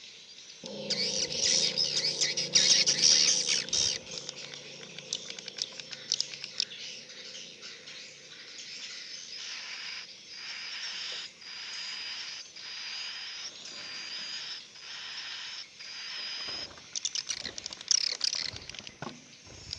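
Edible-nest swiftlets twittering and chirping inside a swiftlet house. A dense burst of high calls comes over a low steady hum in the first few seconds, followed by repeated twittering calls about once a second.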